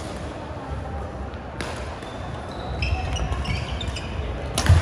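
Badminton racket hits on a shuttlecock during a doubles rally: sharp smacks about a second and a half in and, loudest, just before the end, with short high squeaks of court shoes on the wooden floor between them.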